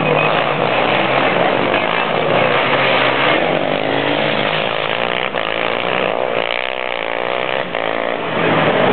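Racing ATV (quad) engine revving hard, its pitch rising and falling with the throttle, getting louder again near the end.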